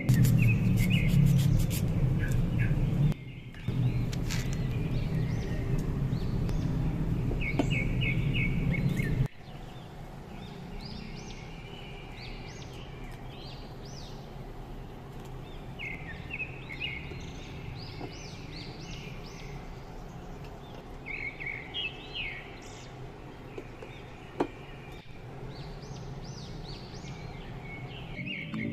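Small birds chirping repeatedly in short bursts. For about the first nine seconds they are heard over a low, steady rumble that drops out briefly near three seconds and then cuts off suddenly.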